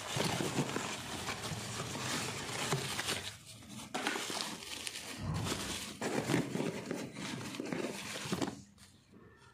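Bubble wrap and cardboard packaging rustling and crinkling as a parcel is unpacked by hand, in stretches with short pauses, then stopping near the end.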